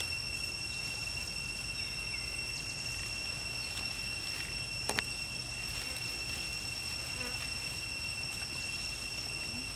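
Steady, high-pitched drone of insects holding two unchanging tones, with one sharp click about five seconds in.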